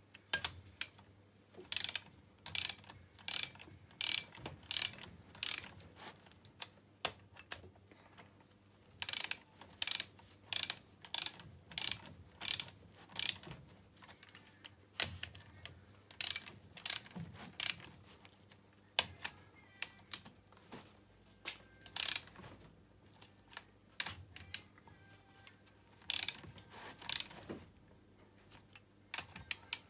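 Torque wrench ratchet clicking in quick runs with short pauses as the cylinder head nuts of a Bashan/Jianshe 250 cc ATV engine are tightened in a cross sequence toward 30 newton-metres.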